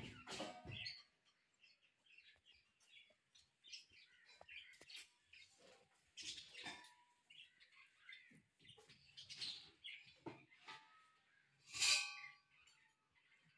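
Small birds chirping over and over, with a metallic clank that rings briefly right at the start and a louder one about twelve seconds in, as a steel LPG gas cylinder is handled.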